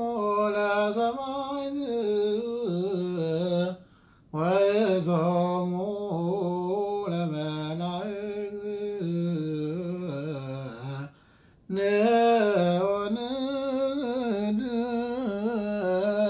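A man chanting solo and unaccompanied, Ethiopian Orthodox liturgical chant (an Abun hymn) in long, wavering melismatic phrases. He breaks off twice for a short breath, about four seconds in and about eleven seconds in.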